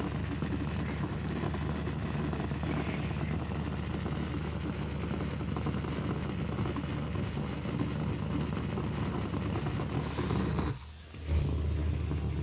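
Conair handheld vibrating massager running on a wooden floor: a steady motor buzz with rattling against the boards as it vibrates, dropping off briefly near the end before coming back.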